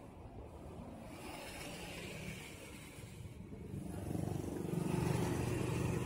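Motor scooter engine running at idle, a steady low hum that grows louder about four seconds in.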